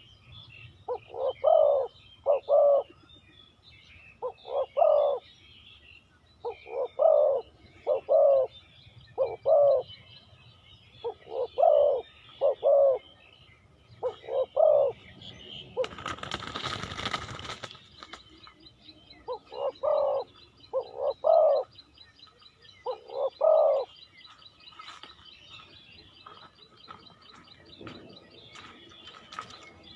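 Spotted dove cooing in repeated phrases of two or three notes, with pauses between phrases. Faint chirps of small birds are behind it. A loud rushing noise lasts about two seconds midway, and the cooing stops during it.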